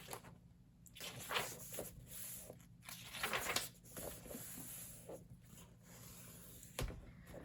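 Paper tearing and rasping in short, irregular strokes as a glued plate is worked loose from an old book's binding, with a single knock near the end.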